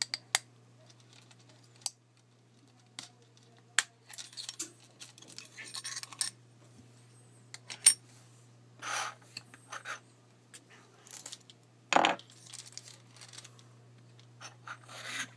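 Sharp metal clicks and scrapes of a pocket watch's snap-on case back being pried at with a fingernail and handled, with the metal chain clinking. The clicks are scattered; the loudest come a little before halfway and about three quarters through, with scratchy rubbing between them.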